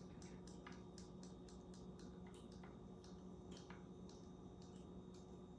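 A kitten lapping water from a fish bowl: faint, quick wet clicks of its tongue, about three to four laps a second.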